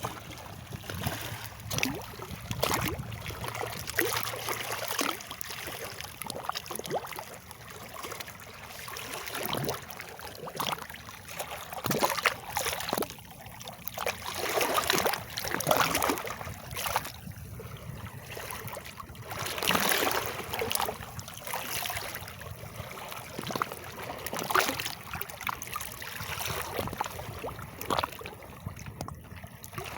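Water splashing and trickling, with uneven swells and many small splashes.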